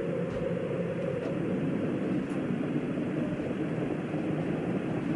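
Steady low rumble of the Space Shuttle Challenger's solid rocket boosters and main engines during ascent, heard through television broadcast audio.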